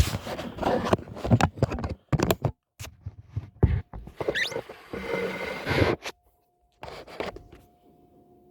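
Objects being handled: irregular scraping, rustling and knocks, with a quick rising squeak about halfway through. It quietens near the end, where a faint steady tone is left.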